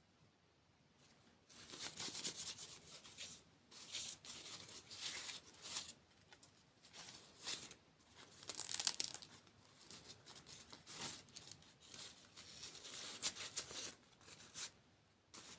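Plastic food packaging being crinkled and torn open in repeated bursts, louder around the middle.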